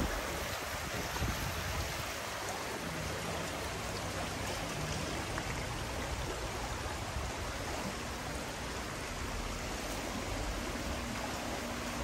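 Shallow, fast-flowing stream running over rocks: a steady rush and babble of water.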